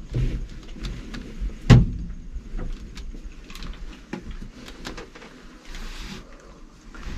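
Scattered knocks, clicks and shuffling of people and gear moving inside a hunting blind, with one sharp thump a little under two seconds in.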